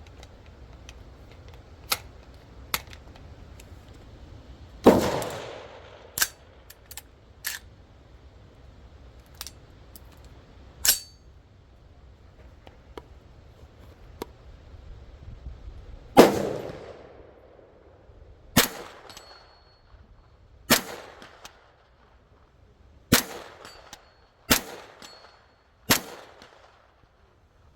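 9mm AR-15 carbine firing single shots: one report about five seconds in, then six more spaced a second or two apart in the second half, each with a short echoing tail. Fainter clicks and knocks of the rifle being handled fall between the shots, and a brief high ring follows a few of the reports.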